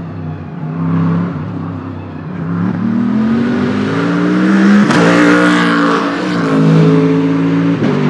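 Jaguar XKR-S GT3 race car's 5.0-litre V8 accelerating hard past on track, its pitch climbing and then dropping back sharply at each of about three upshifts, with a crack at the shifts. It is loudest as the car goes by, about five seconds in.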